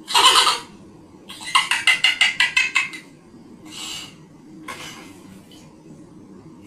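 A man's high-pitched vocal outbursts: a short shriek, then a quick run of hen-like cackling pulses lasting about a second and a half, then two shorter cries.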